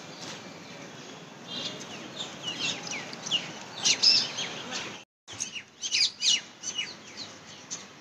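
Birds in the trees chirping, many short, high calls that sweep downward, over a steady outdoor hiss. The sound cuts out completely for a moment about five seconds in.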